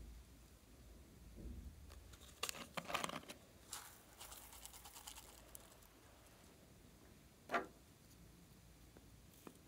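Small plastic cosmetic containers handled over a glass bowl of slime: a run of small crackling clicks in the first half, then one louder short pop about seven and a half seconds in and a faint click near the end.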